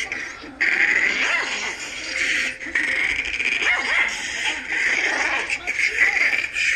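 Long-haired Chihuahua yapping and snarling, its pitch sliding up and down, played back through a device's small speaker.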